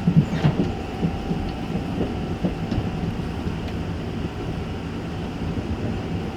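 Running noise in the gangway between two cars of a Taiwan Railway EMU900 electric multiple unit under way: a steady rumble of wheels on rail. There are several knocks in the first second or so and a few light clicks after that.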